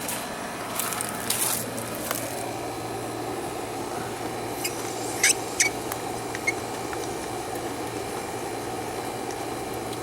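Outdoor hose faucet being opened up to full pressure: water hisses steadily through the spigot and garden hose under a low hum, with a few sharp squeaks and clicks from the tap handle, the loudest about five seconds in.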